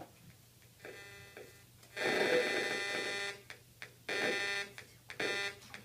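A harsh, steady buzzing tone sounding in four bursts: a faint short one about a second in, a loud one lasting over a second, then two shorter ones.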